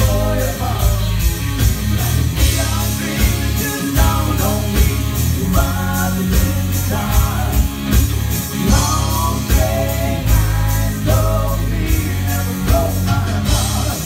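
A live band plays a country-rock song: a man sings lead over electric bass, electric guitar and drums, with a steady beat.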